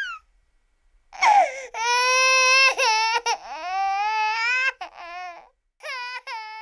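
A baby crying: long, high wailing cries broken by short catches of breath, after a second-long gap at the start and a brief pause near the end.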